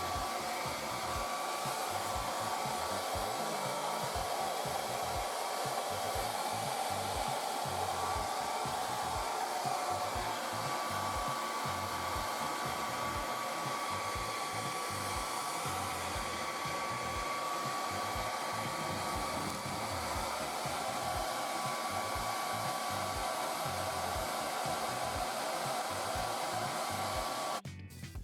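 Small electric motor blowing air, running steadily with a thin high whine over a rushing noise, then cut off suddenly near the end.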